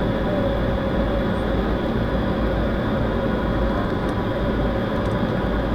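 Steady drone of a Tu-154M airliner in flight, its three rear-mounted turbofan engines and airflow running evenly on the landing approach, with a few steady engine tones over the noise.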